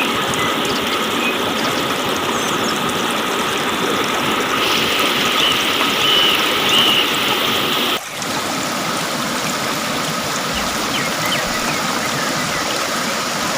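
Waterfall rushing steadily, with a brief drop about eight seconds in before the rush carries on.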